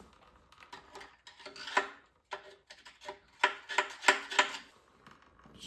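A string of light, irregular metallic clicks and taps, some with a short ring, from metal tools and parts being handled.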